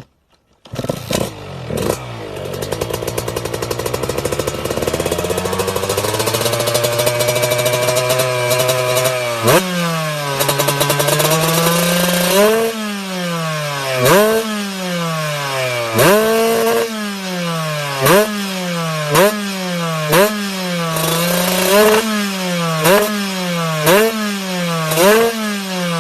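A 125 cc single-cylinder trail motorcycle engine begins about a second in and idles, its idle slowly rising. From about ten seconds in the throttle is blipped over and over, each rev rising sharply and dropping back, about one every one to two seconds.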